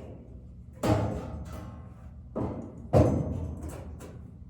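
Three dull thumps at uneven spacing: one about a second in, then two close together just past the middle.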